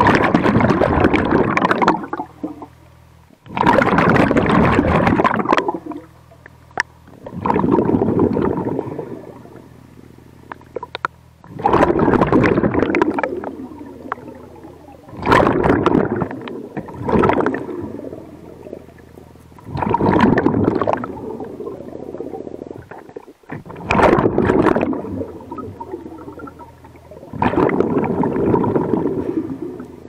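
Diver breathing underwater through a hookah-system regulator: a rush of exhaled bubbles about every four seconds, each lasting one to two seconds, with a steady low hum in the gaps between breaths.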